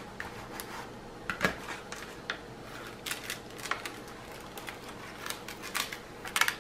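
Paper cover sheet of a glue-coated diamond painting canvas rustling and crinkling as it is pressed down and peeled back by hand, with a scatter of sharp crackles.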